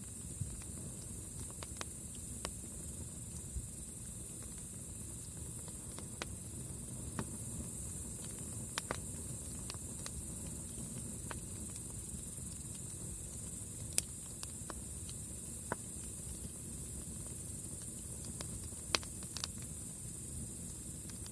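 Campfire burning, with scattered sharp pops and cracks from the wood over a low steady rush of the flames, and a constant high hiss.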